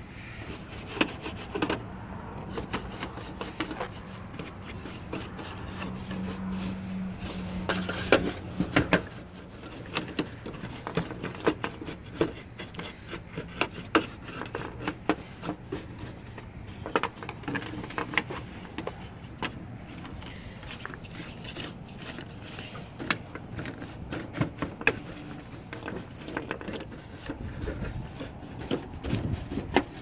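Stiff bristle brush scrubbing and scraping dried mud-nest debris off a TV's sheet-metal back panel, in many short, irregular scratchy strokes.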